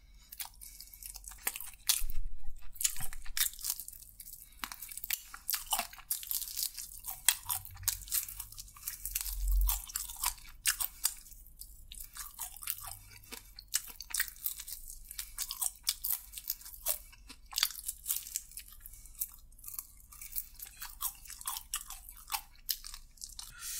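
Crispy fried chicken being bitten and chewed close to the microphone: a steady run of crisp crunches with short pauses between bites.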